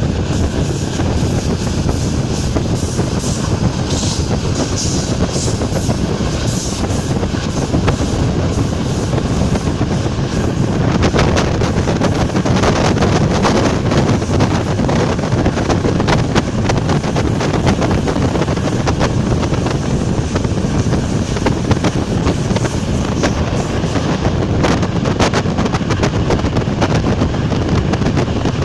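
ČD class 460 electric multiple unit running along the line, a steady rumble of wheels on rail with rapid clicks of wheels over rail joints from about a third of the way in. A faint steady whine fades out at about the same point.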